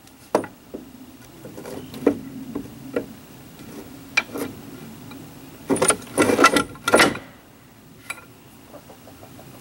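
Wooden transom board knocking and scraping against the fiberglass boat hull as it is set into place: a few scattered knocks, then a louder cluster of bumps and scraping about six to seven seconds in.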